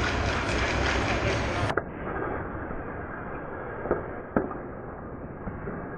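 Ice hockey play heard from the net: steady rink noise of skates on ice, broken about four seconds in by two sharp clacks of stick and puck, the second louder.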